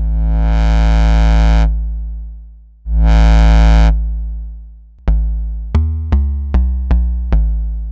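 Make Noise modular synthesizer voice passed through the DXG low-pass gate: two long low notes that open quickly, hold, then fade slowly, followed about five seconds in by a quick run of about seven short plucked-sounding notes at changing pitches. Each note opens fast and closes more slowly, the decay a low-pass gate adds to its envelope.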